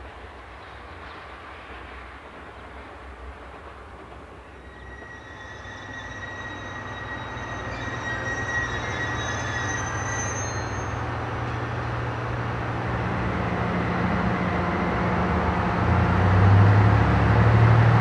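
Okuizumo Orochi trolley train, hauled by a DE10 diesel locomotive, approaching along the track and growing steadily louder. A high wheel squeal rings for a few seconds midway, and the locomotive's diesel engine comes up loud near the end.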